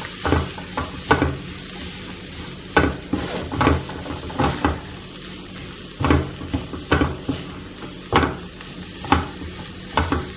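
Spatula scraping and stirring onion-tomato masala in a nonstick kadai, about a stroke a second, over a steady sizzle of frying. Coriander powder is being roasted in the oil until its raw taste cooks off.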